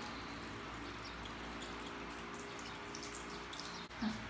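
Water running steadily from a handheld shower sprayer at a salon shampoo basin, rinsing through hair and splashing into the basin. It cuts off suddenly near the end.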